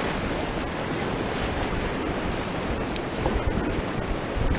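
River rapids: whitewater rushing steadily around the kayak, with a low rumble of wind buffeting the microphone.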